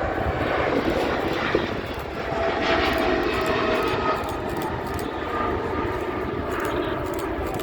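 Jet airliner engines passing overhead, a steady loud rush of engine noise with faint whining tones that shift slowly in pitch.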